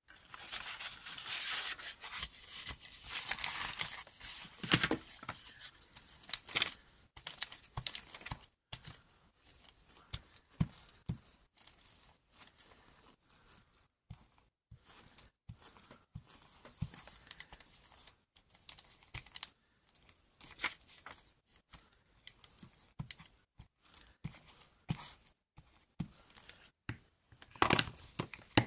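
Paper and card being handled on a cutting mat: sheets rustle and slide busily for the first few seconds, then scattered small taps and rustles, with a louder burst of handling near the end.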